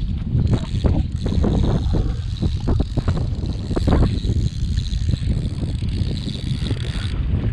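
Wind buffeting the microphone in a steady low rumble, with scattered short knocks and a faint steady high whine that cuts off near the end.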